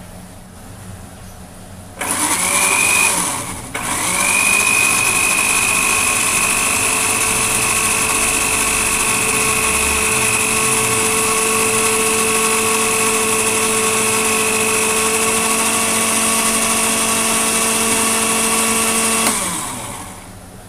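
Electric countertop blender motor grinding a soft banana and aloe vera mixture. It starts about two seconds in, stops for a moment and restarts, runs steadily with a high whine, then spins down near the end.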